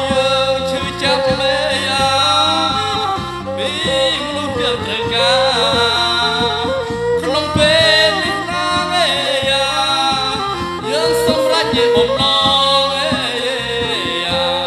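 Lakhon Basak (Khmer Bassac opera) song: a voice sings long, wavering, gliding lines over its instrumental ensemble.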